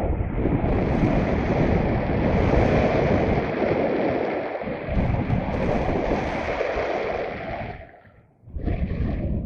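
Strong wind buffeting the microphone of a paraglider pilot's camera in flight, a loud steady rush that briefly drops away near the end.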